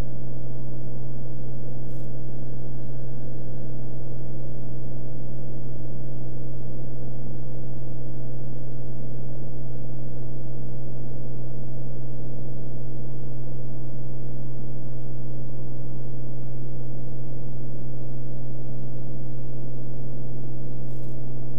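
Beechcraft Bonanza F33's flat-six piston engine and propeller droning steadily in flight, heard inside the cabin as one constant low hum with no change in power.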